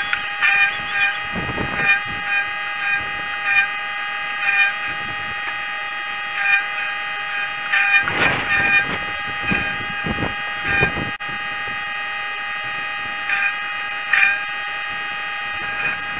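A small petrol engine on tree-removal gear running steadily at high speed, with intermittent knocks and clatters from the work.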